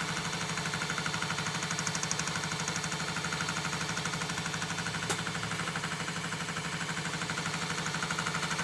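Chinese 8-in-1 combination machine tool running with a disc cutter milling teeth into an aluminium toothed-pulley blank, a steady machining noise with a fast, even pulsing. There is a single sharp click about five seconds in.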